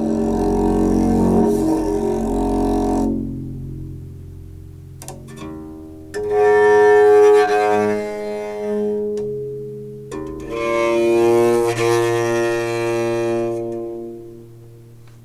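Deep bass notes from a homemade metal-framed harp strung with flatwound bass strings, heard through a contact mic. Three long notes, at the start and about 6 and 10 seconds in, each with a scratchy hiss while it sounds, then ringing out and fading, with a few clicks between them.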